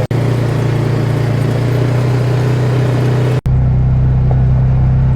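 Polaris RZR 570 side-by-side's single-cylinder engine running at a steady, even pace, not revving. The sound breaks off for an instant twice, just after the start and about three and a half seconds in.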